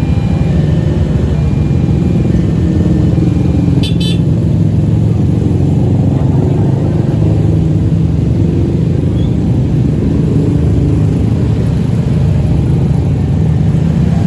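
Heavy vehicle engine running steadily and loudly, with a few short, high musical horn notes in steps during the first few seconds and a sharp click about four seconds in.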